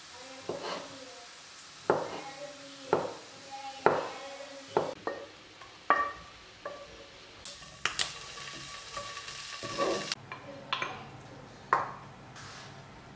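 Chef's knife chopping through small sausages onto a wooden cutting board, about five sharp knocks roughly a second apart. Then a wooden spatula scraping food out of a frying pan, with clinks of the pan and ceramic bowls.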